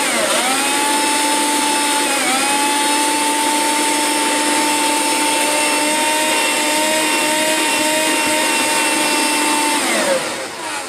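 12-volt handheld car vacuum's motor and fan running as a blower, powered straight from a computer power supply: a steady high whine that dips briefly in pitch twice near the start, then winds down near the end.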